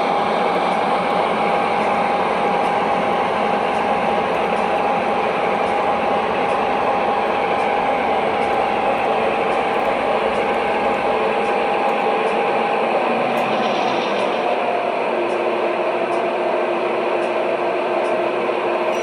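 O gauge model diesel locomotives running, with a steady rumble and a whine. About two-thirds of the way through, the whine slides lower and a lower tone takes over.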